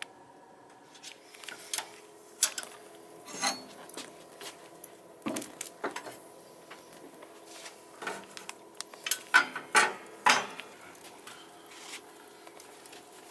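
Irregular clinks and clatters of metal utensils against dishes, a dozen or so scattered strikes, loudest in a cluster a little past the middle.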